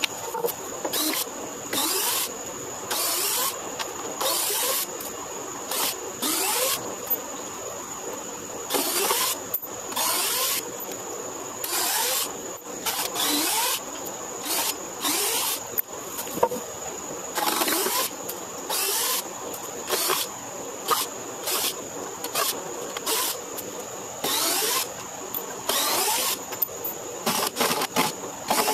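Cordless drill backing screws out of weathered wooden deck boards in short trigger bursts, about one every second or two, with short squeaks in between.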